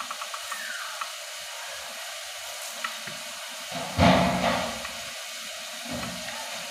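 Diced tomatoes cooking in a pot on a gas stove, giving a steady sizzling hiss. About four seconds in, a louder rustling burst comes as stock cubes are crumbled by hand into the pot.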